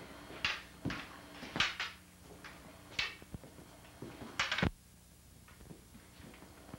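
Wooden practice poles striking each other in a sparring exchange: a string of about eight sharp, irregular clacks, some in quick pairs, falling off after about five seconds, over a faint steady hum.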